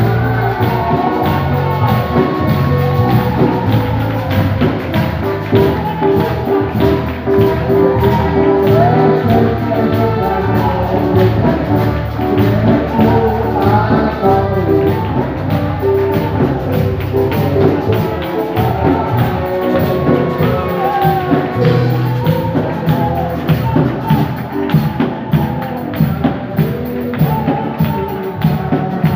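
Live worship music played loud through a hall's PA: a voice singing a melody over a drum kit, bass and tambourine keeping a steady beat, with the congregation clapping along.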